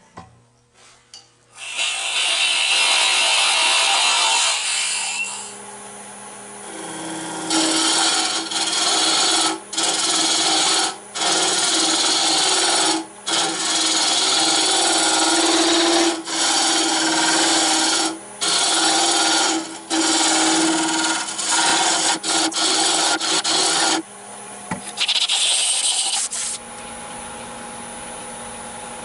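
Hollowing tool cutting into a spinning olive-wood blank on a wood lathe. The cutting comes in long passes broken by many short gaps, over the lathe's steady hum. The cutting stops near the end and the lathe keeps running.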